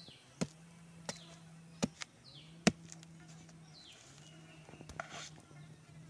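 Knife blade striking and scraping into packed soil while termite mushrooms are dug out. Sharp taps come about five times in the first three seconds, with a longer scrape near the end. A short falling whistle-like call repeats about once a second behind it.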